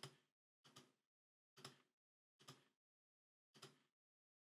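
Five faint, short clicks of computer keyboard keys being pressed, about one a second, each dying away quickly.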